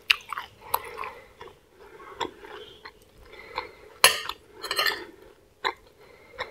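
Metal spoon clinking and scraping against a plate while scooping rice and vegetables, in a handful of sharp clinks, with a louder cluster about four seconds in.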